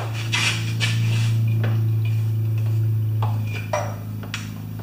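Champion 3000-watt generator's small single-cylinder engine running at a steady speed, with a few light metallic clinks of tools over it. It runs, though not like a new one.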